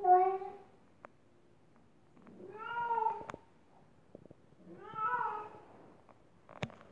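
Bengal cat meowing three times, each call about a second long and rising then falling in pitch, the first the loudest. A sharp click near the end.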